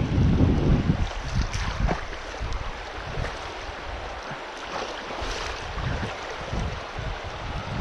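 Rushing water with wind buffeting the microphone in low gusts, strongest in the first second; no engine is running.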